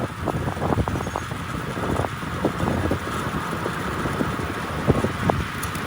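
Wind buffeting the microphone in irregular low thumps over a steady rumble of road noise.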